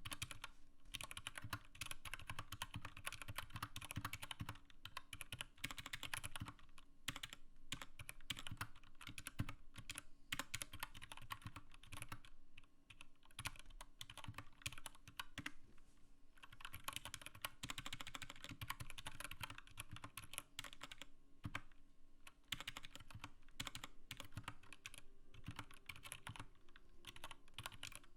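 Continuous typing on an Anne Pro 2 mechanical keyboard: a fast, steady stream of keystroke clicks, broken by a few short pauses.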